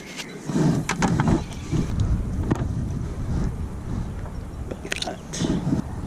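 Low rumble of wind on the microphone, with a few sharp clicks and knocks as metal finds are handled at the magnet.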